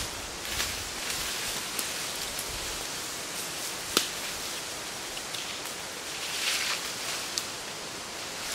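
Leaves and brush rustling as a person moves through forest undergrowth, over a steady hiss. There is one sharp snap, like a twig breaking, about four seconds in.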